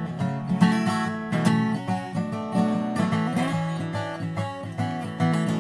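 Acoustic guitar playing an instrumental passage of a song, chords and picked notes with no singing.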